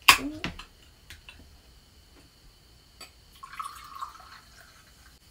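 A drink can's pull-tab snapped open with a sharp crack at the start, followed by a few light clicks. About three and a half seconds in, the drink is poured into a glass, splashing and gurgling for under a second.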